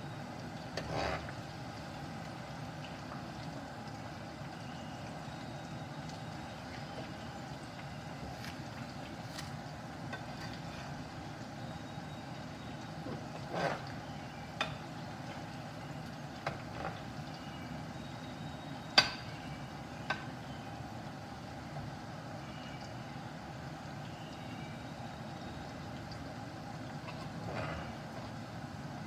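Potato fries deep-frying in hot oil in a metal pan: a steady frying noise, with several sharp clinks of a metal slotted spoon against the pan, the loudest about two-thirds of the way through.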